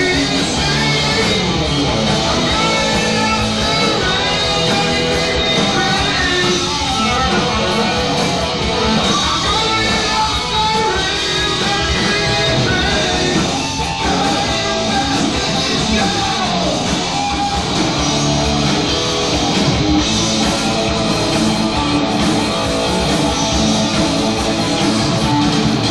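Heavy metal band playing live: distorted electric guitar over bass and drums, with singing.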